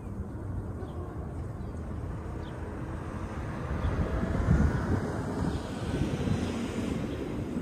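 Low rumble of a distant engine that swells about four seconds in, with wind buffeting the microphone.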